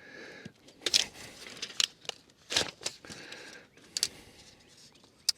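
Scattered sharp clicks and soft rustling: handling noise while measuring across the end of a large pine log.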